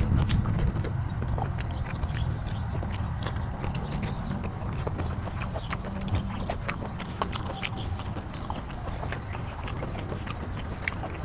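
Close-miked chewing of raw shrimp: a continuous run of many small wet mouth clicks, with no break.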